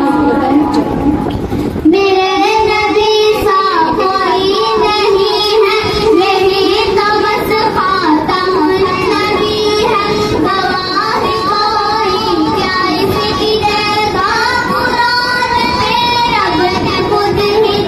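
Young girls singing a devotional naat into a microphone, one high child's voice carrying a melodic line with a second joining in. A new phrase begins about two seconds in.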